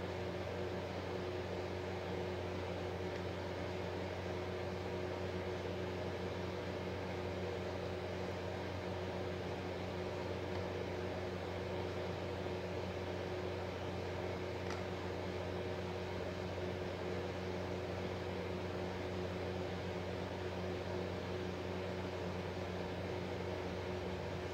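A steady low hum with a faint constant whine above it, unchanging throughout.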